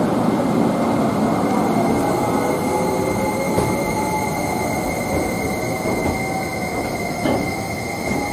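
Tobu N100 series Spacia X limited express moving slowly along the platform, with a steady high-pitched wheel squeal from the station's tight curve over the rumble of the cars. Two faint knocks come through, one midway and one near the end.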